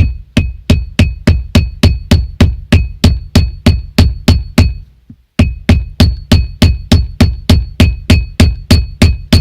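Hammer blows driving a drilled wooden knob, cut from a 2x4, down onto a car's metal gear-shift lever: rapid, even strikes about three or four a second, each with a short ring, with a brief pause about five seconds in.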